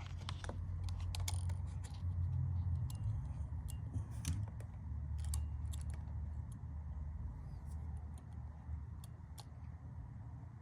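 Scattered light clicks and rattles of small plastic parts and screws being handled during reassembly of a car display unit, over a steady low hum.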